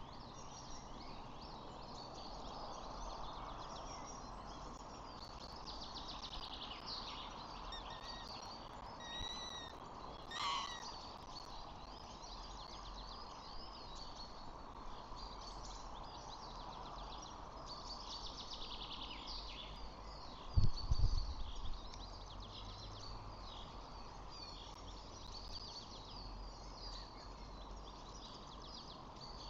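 Outdoor birdsong: many small birds chirping and trilling over a steady background hum. One clearer call with a gliding pitch comes about ten seconds in. A low thump about twenty seconds in is the loudest sound.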